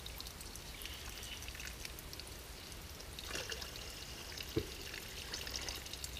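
Water trickling and dripping out of the bottom of a cloth Millbank bag filter while the bag saturates, with a single short knock a little past halfway.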